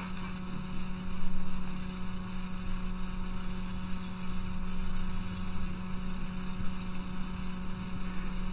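Steady electrical mains hum in the recording: a constant low drone with faint, steady higher tones above it.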